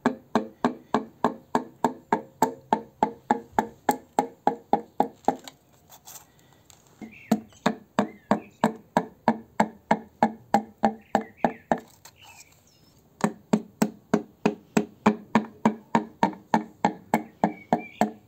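Wooden hammer handle tapping pistons down through a steel piston ring compressor into the cylinder bores of a Ford 2.2 TDCi diesel block. Quick, even knocks at about three a second, in three runs with short pauses between them.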